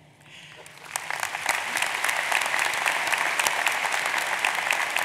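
A large arena audience applauding. The clapping starts about a second in, swells quickly and then holds steady.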